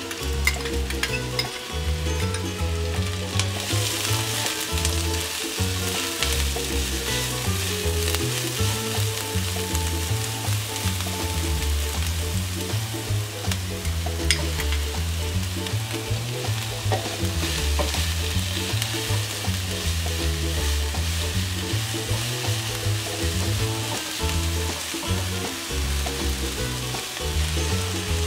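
Chopped onion and ginger sizzling steadily in hot oil in a nonstick wok as they are spooned in and stirred, with a few light spoon clicks in the first couple of seconds and the sizzle growing fuller a few seconds in. Background music plays underneath.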